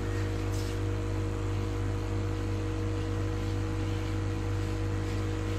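Small 12 V electric pesticide-sprayer pump running under load, a constant even hum.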